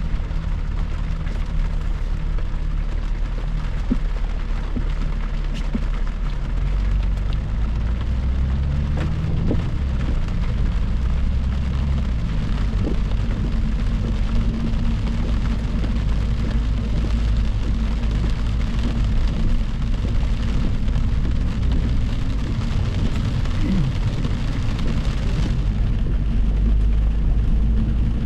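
Steady road noise of a vehicle cruising at highway speed: tyre hiss with a low engine hum that shifts in pitch around ten seconds in. The hiss grows louder near the end.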